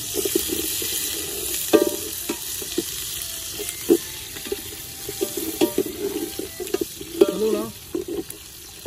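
Onions frying in hot oil and ghee with whole spices, sizzling steadily, while a ladle stirs them and scrapes and knocks against the pot every second or so.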